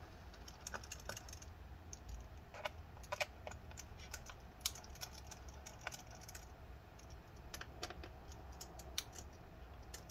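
Faint, irregular small clicks and taps of a pentalobe screwdriver working the tiny screws in a MacBook Air's aluminium bottom case, a few sharper ticks standing out among them.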